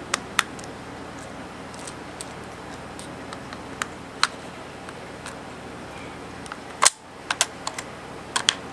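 Brass shell casings clicking against the metal action of a Marushin K98 gas airsoft rifle as a full stripper clip is thumbed down into the magazine. Scattered sharp metallic clicks, the loudest about seven seconds in, followed by a quick run of smaller clicks.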